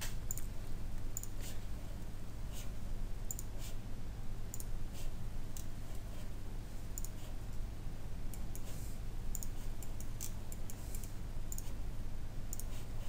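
Computer mouse clicking, many short sharp clicks at irregular intervals as points are picked on screen, over a steady low electrical hum.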